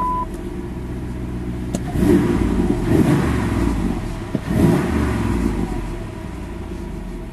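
Dodge Dakota V8 with a Flowmaster exhaust and K&N intake, just started and running at idle, heard from inside the cab. It swells in loudness twice, about two seconds in and again near five seconds, as if revved briefly, then settles back to a steady idle.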